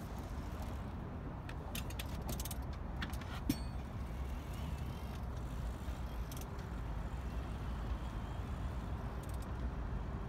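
Steady low rumble of road traffic outdoors, with a few light clicks and rattles and one short knock about three and a half seconds in.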